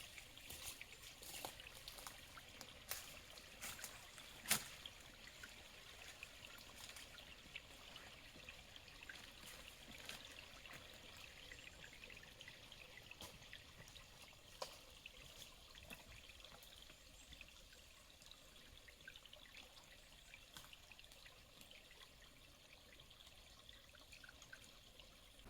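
Faint trickling water with scattered small clicks, one sharper click about four and a half seconds in.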